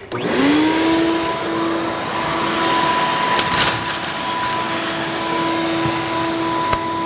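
Wet/dry shop vacuum switched on, its motor whining up to speed within about half a second and then running steadily. It is blowing its exhaust air through the hose into an empty fuel tank to dry out the inside.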